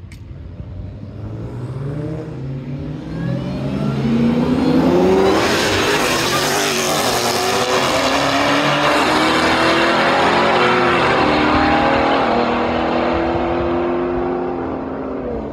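A Hellcat's supercharged V8 and a Ford Explorer ST's twin-turbo V6 accelerating hard side by side in a drag race. The engine notes climb in pitch and drop back at each upshift, loudest through the middle, then ease off slightly as the vehicles pull away down the strip.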